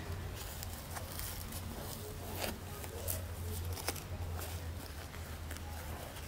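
Soft rustling and a few light clicks of a disposable diaper and a cotton romper being handled and adjusted, over a steady low hum.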